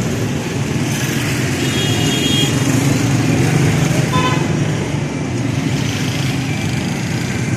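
Busy street traffic: cars and motorcycles running by in a steady din, with short horn toots about two seconds in and again about four seconds in.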